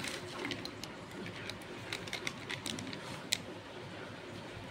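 Crunchy twisted snack pieces tipped from a crinkly snack packet into a bowl: many light, scattered ticks of pieces dropping and shifting, with one sharper click a little past three seconds.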